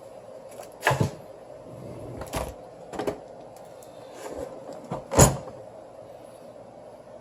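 Four sharp knocks and clacks of objects being handled and set down on the workbench, the loudest about five seconds in, over a steady background hum.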